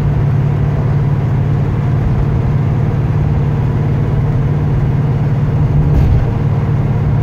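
1968 Plymouth GTX's 440 big-block V8 running steadily at cruise, heard from inside the cabin as a constant low drone.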